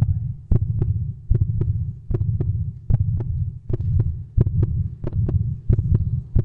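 Loud heartbeat-style double thump about every 0.8 seconds over a steady low hum, played over a stage sound system as part of a dance performance mix.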